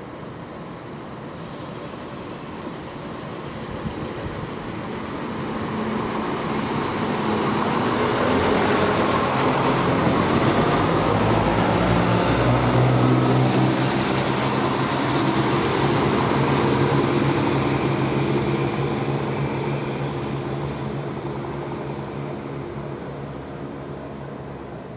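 Chiltern Railways Class 168 diesel multiple unit passing at speed: underfloor diesel engines running with a steady low note, plus wheel and rail noise. It builds to a peak around the middle and then fades away.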